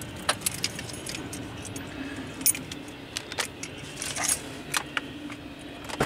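Keys jangling in a series of light, irregular metallic clicks and jingles, over a steady low rumble.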